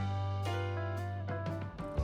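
Background music with guitar, bass and drums: held notes over a steady bass line, with drum hits.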